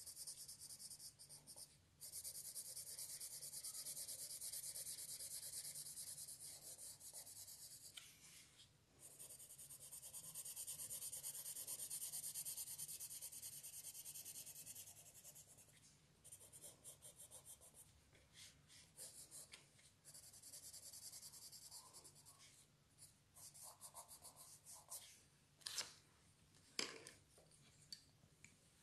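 Faint pencil shading on paper: long, steady scratching strokes a few seconds at a time, turning to shorter, broken strokes in the second half, with a few light knocks near the end.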